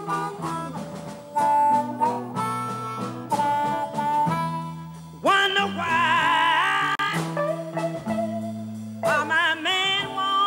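A Chicago blues band of electric guitar, bass, drums and amplified harmonica plays a slow blues. About five seconds in, a woman's powerful singing voice comes in with a wide vibrato, and it comes in again near the end.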